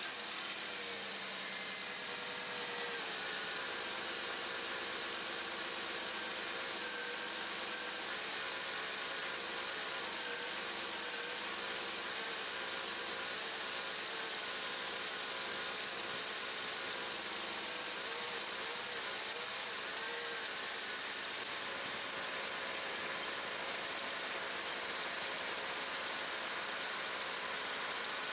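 1994 Camaro's 3.4 L V6 running at a steady idle just after starting, its serpentine belt turning on a new tensioner. A slight grind and a faint wavering whine come from the belt drive, which the owner thinks will mean replacing the water pump.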